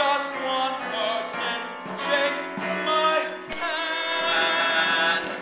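A musical-theatre song sung with accompaniment, the voice wavering in vibrato and ending on a long held note from about three and a half seconds in.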